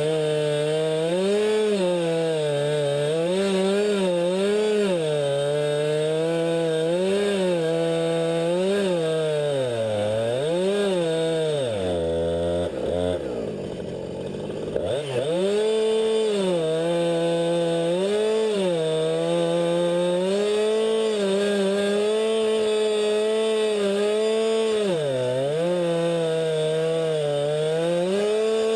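Small high-revving saw engine running through a cut, its pitch sagging and recovering every second or two as it takes load. About halfway through the pitch drops low for a couple of seconds before it comes back up to speed.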